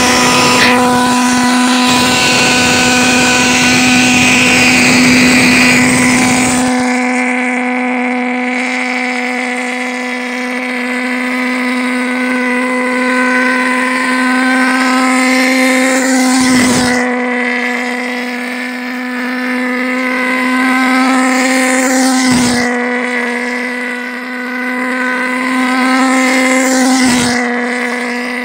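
Pulse jet engine with a 1-inch combustion chamber running flat out, a loud buzzing drone at one steady pitch. About seven seconds in the low rumble drops away as the tether car sets off, and three times after that, about every five seconds, the sound swells and sweeps as the car passes close on its lap.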